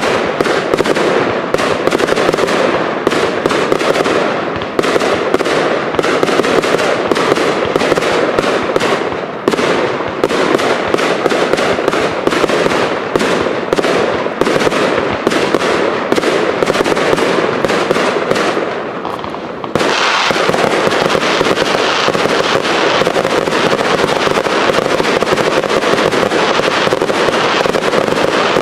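Fireworks display: dense, rapid crackling with many sharp cracks. About twenty seconds in it changes abruptly to a steady, unbroken rush of sparks as a ground fountain shoots a tall column of sparks upward.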